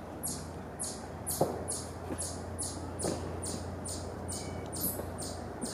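An insect calling in a steady train of short, high rasping pulses, about two to three a second. A few soft knocks stand out under it, the loudest about a second and a half in.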